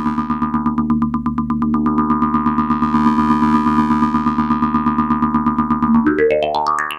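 Eurorack modular synthesizer patch: a Make Noise Q-Pass resonant filter pinged by a fast gate stream rings with a clean, pitched decay, fed through a Mimeophone at a very short delay for a Karplus-Strong plucked tone. The result is a rapid, even pulse over a steady chord of tones, and near the end the tones sweep upward in pitch.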